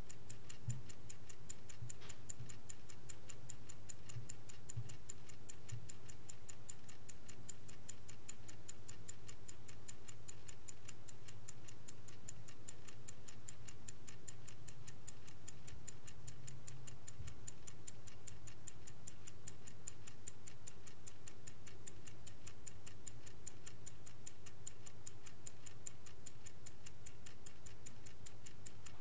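A vintage Swiss-made Angelus clock ticking steadily and evenly, over a faint low hum.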